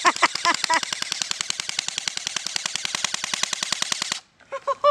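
Full-auto BB gun firing a rapid, even stream of shots that stops suddenly about four seconds in.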